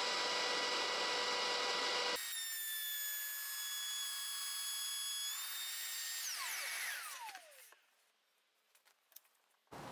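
Makita 18V cordless trimmer router mounted in a router table, running with a steady high whine while cutting a rebate in a board; about two seconds in the sound shifts and the heavier cutting noise drops away. Around six seconds in it is switched off and winds down with a falling whine to a stop, followed by a few faint ticks and the board being handled near the end.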